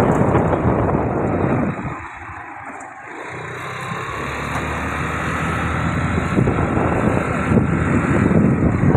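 Rushing wind and road noise from a moving vehicle, which drops away sharply about two seconds in. A steady engine hum then builds slowly louder.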